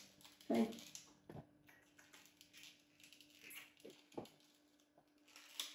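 Faint, scattered clicks and taps of a small plastic toy being handled and worked with the fingers, over a faint steady hum.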